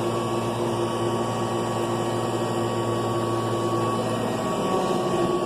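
Kirby 2-CB Classic III upright vacuum cleaner running steadily while vacuuming: a constant motor hum with a steady higher tone over rushing air.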